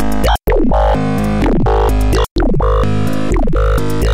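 Oscilloscope music: a synthesized stereo signal whose waveforms draw pictures on an oscilloscope screen. It is made of buzzy electronic tones over a steady low bass, with falling pitch sweeps, and it cuts out briefly twice as the picture changes.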